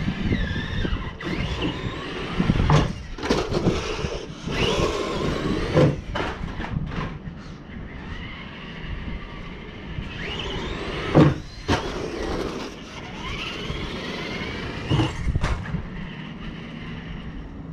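Electric RC car motor whining up and down in pitch as it speeds up and slows, with several sharp knocks and rattles, the loudest about eleven seconds in.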